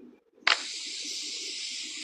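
A sharp click about half a second in, then a sudden steady hiss that carries on unchanged.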